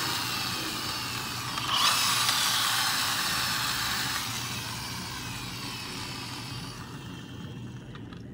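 A toy school bus whirring as it is run, the whine gliding down in pitch. It picks up again about two seconds in, then slowly fades.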